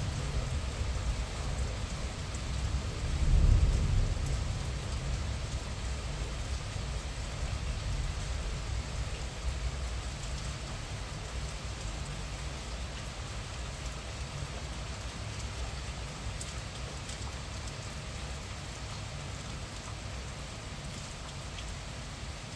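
Moderate rain falling steadily. A low rumble under the rain swells about three to four seconds in, then slowly fades.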